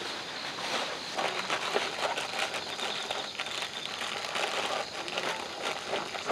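Many small clicks and clatters over steady chirping of crickets.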